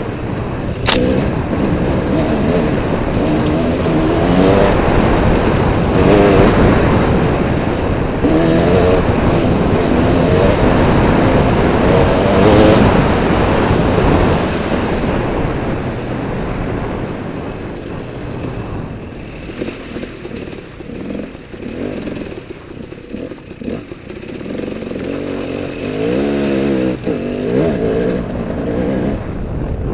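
Trail motorbike engine revving up and down over a rough dirt track, loudest in the first half, easing off from about sixteen seconds in and revving up again near the end. A single sharp click about a second in.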